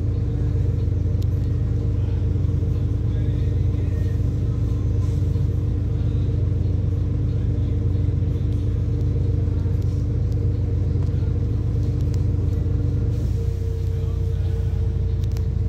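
Wright Eclipse 2 single-deck bus running, heard from inside the passenger saloon: a steady low rumble with two steady hums. About 13 seconds in the lower hum stops and the higher one shifts slightly.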